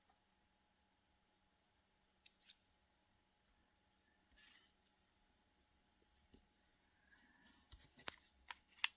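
Near silence with a few faint rustles and light taps of paper being handled, coming more often near the end.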